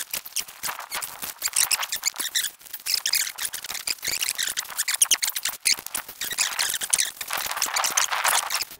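Footsteps in rubber boots crunching and squeaking through snow at a walking pace, a dense, continuous run of crisp crunches.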